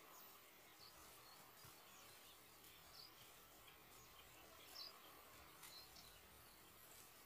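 Near silence: faint outdoor ambience with a few soft, scattered bird chirps.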